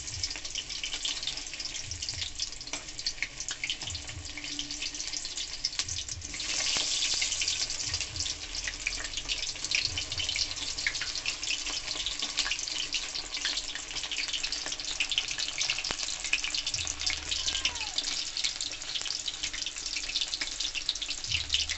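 Batter-coated chicken leg pieces deep-frying in hot oil in a steel kadhai: a steady sizzle with dense crackling, louder from about six seconds in.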